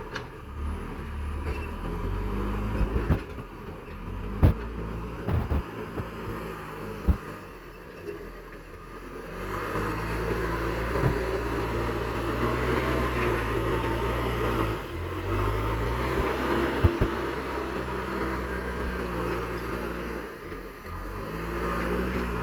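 JCB backhoe loader's diesel engine running and revving as it works, its pitch rising and falling several times, with a few sharp metallic knocks.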